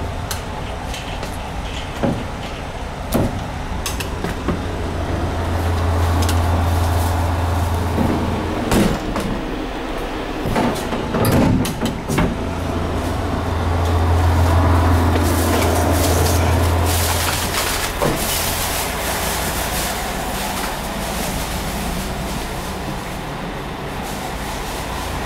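Interior of a JR West 221 series electric train car: a steady low hum that swells twice, with a few scattered knocks and clatter.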